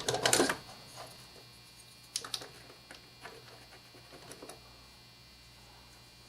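A few light clicks and taps from handling, coming mostly in the first half, over a steady low electrical hum.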